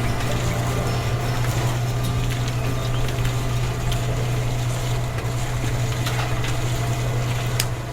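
A small motor running steadily, giving a constant low hum under a noisy, rattling haze.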